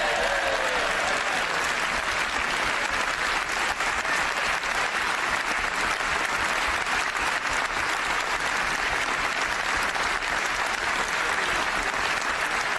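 A large crowd of MPs applauding steadily: a standing ovation, dense clapping throughout.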